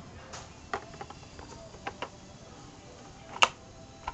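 A few scattered light clicks and knocks as the Lego vending machine and coins are handled, the loudest about three and a half seconds in.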